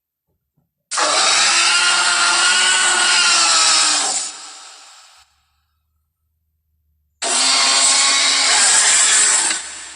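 Tyrannosaurus rex roar sound effect, played twice: two long, harsh, rasping roars of about three seconds each, the second starting about seven seconds in, each trailing off briefly.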